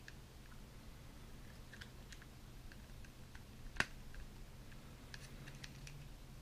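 Faint clicking and rubbing of a hard-plastic McFarlane Warhammer 40,000 Primaris Assault Intercessor action figure as its joints are moved by hand. There are scattered small clicks, and one sharp, louder click a little under four seconds in.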